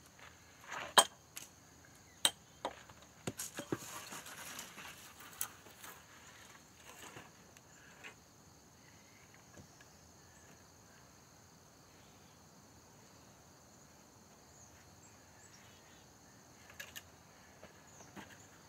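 Birch logs knocking against each other as they are handled and set onto a log wall: several sharp wooden knocks in the first few seconds, the loudest about a second in, and a few more near the end. In between, only a faint steady high drone of insects.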